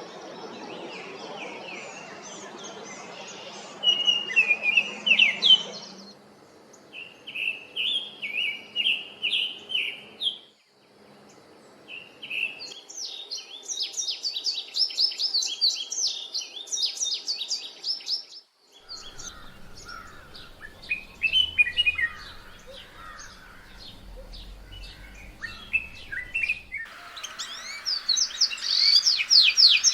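Songbirds singing: a run of rapid chirps, trills and warbled phrases. The background changes abruptly several times, as separate recordings are spliced together.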